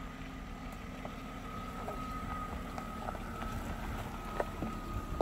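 BMW 525i crawling over a rough, broken dirt track: a steady low rumble of engine and tyres, with scattered light knocks and rattles as the car works over the bumps.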